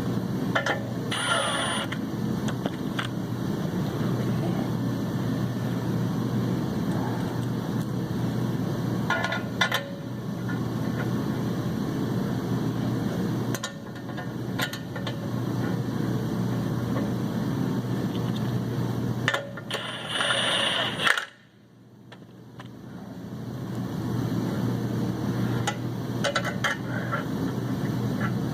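A steady mechanical hum with scattered short metal clinks of hand tools as the clutch pressure-plate bolts are snugged down onto the flywheel. The hum cuts out suddenly about three-quarters of the way through and swells back over a couple of seconds.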